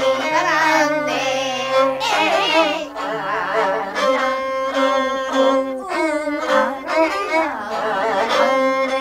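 Ajaeng, the Korean bowed zither, played as a melody with wide vibrato and sliding pitch bends over steady held lower tones.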